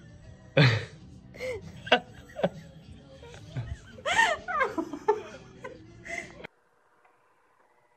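A person laughing in several short bursts, cut off abruptly near the end.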